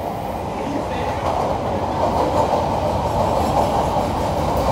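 Chicago CTA rapid-transit train running, heard from inside the car: a dense rumble of wheels on rail that grows steadily louder.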